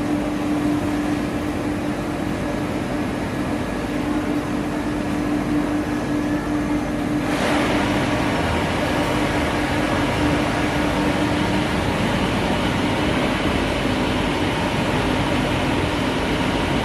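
Steady hum of an industrial CBW tunnel washer line and its overhead sling-bag conveyor, with one steady tone running through it. About seven seconds in, a louder hissing, rushing noise sets in suddenly and keeps going.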